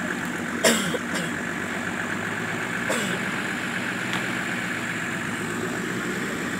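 Off-road vehicle engine running steadily at low revs, with a sharp, sudden knock just under a second in and a weaker one about three seconds in.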